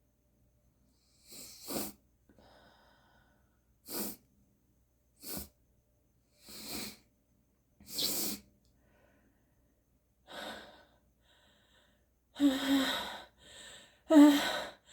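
A person sneezing repeatedly: short sharp breaths and small sneezes spaced a second or two apart, building to two loud, congested sneezes near the end.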